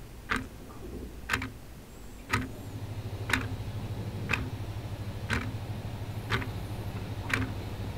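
Quartz wall clock ticking once a second, eight even ticks, over a low steady hum that comes up about two seconds in.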